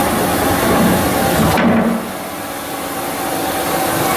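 Machinery running with a steady hum and hiss. Just under two seconds in, a click is followed by the hiss cutting off and the sound dropping, and it builds back up over the next two seconds.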